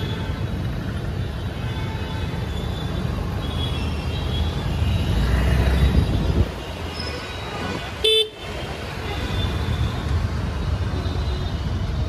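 Road traffic noise with a low rumble of engines and wind on the microphone from a moving two-wheeler. The rumble drops about six seconds in. Faint horns sound in the background, and a vehicle horn gives one short, loud beep about eight seconds in.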